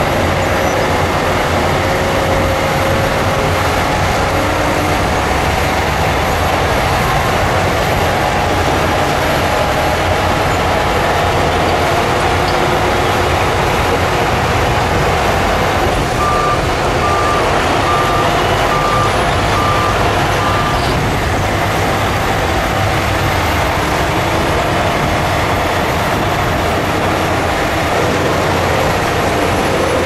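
Crawler bulldozer's diesel engine running steadily under load as it works soil. About 16 s in, its reversing alarm gives six short beeps, a little over one a second, as it backs up.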